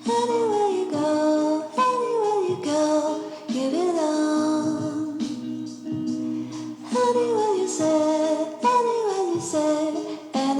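Background music with a sung or sung-like melody, a phrase of gliding notes repeating about every seven seconds.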